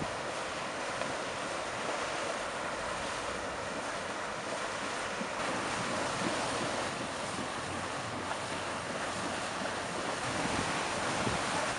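Steady rushing of wind and sea water, an even hiss with no engine tone or distinct splashes.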